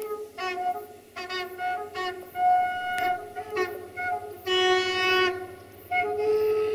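Train wheels squealing against the rails as the cars pass: a run of shrill whistling tones that come and go in short pulses and shift in pitch, longest and loudest near the middle.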